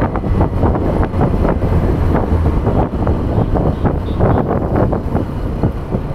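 Wind buffeting the microphone of a rider on the move, over the steady running of a Hero Hunk's single-cylinder motorcycle engine.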